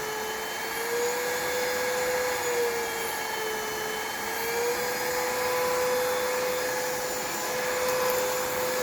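Kmart Anko 22.2 V cordless stick vacuum cleaner running in turbo mode: a steady motor whine over airflow hiss. The pitch wavers gently during the first few seconds, then holds level.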